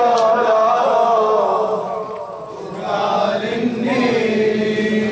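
Men's voices chanting a Shia mourning chant (latmiya), led by a male reciter singing into a microphone. It comes as two chanted phrases with a brief lull between them.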